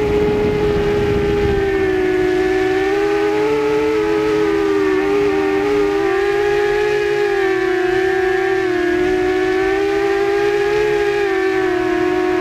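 Quadcopter's electric motors and propellers whining steadily, heard from a camera mounted on the drone: several close tones that waver up and down in pitch as the motors change speed. A low wind rumble on the microphone in the first second or so.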